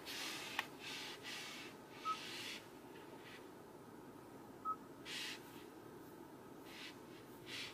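Two short, high electronic beeps from a Genesis GV80's infotainment touchscreen as it is tapped, about two and a half seconds apart, with a light click and several soft breath-like hisses between them.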